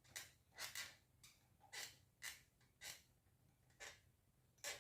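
Faint, short rustles and clicks, about nine of them at uneven intervals, from small metal and plastic parts being handled while a washer is fitted to a pedestal fan's rear grille.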